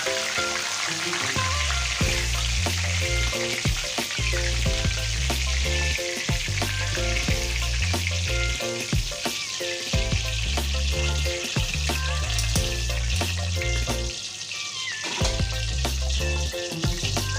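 Battered stuffed tofu deep-frying in hot oil with a steady sizzle, while the pieces are lifted out with a wire strainer. Background music with a repeating bass line plays over it.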